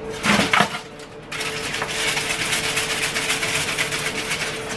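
Aluminium foil tray and its foil cover crinkling and rustling as they are handled, a dense crackling that sets in about a second in, after a brief knock near the start, over a steady hum.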